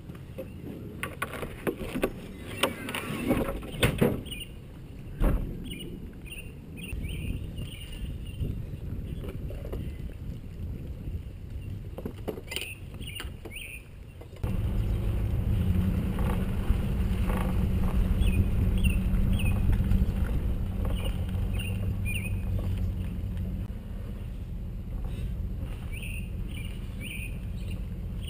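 Knocks and clatter of gear being handled aboard a bass boat on its trailer, with short chirps of birds. About halfway through, a steady low rumble of the tow vehicle running sets in suddenly and continues to the end.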